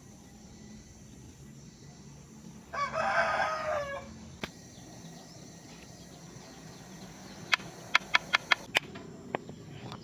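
A rooster crows once, about three seconds in. Later a quick run of about seven sharp knocks comes in just over a second, the loudest sounds here, with a single knock before and after.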